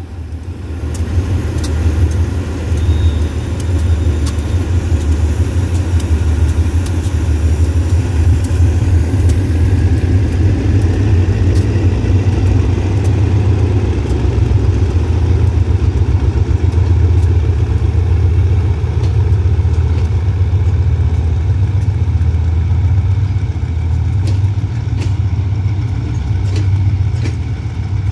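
Diesel locomotive of the State Railway of Thailand running under power as it pulls a passenger train slowly past: a steady low engine drone. Scattered clicks of wheels over rail joints come as the carriages roll by.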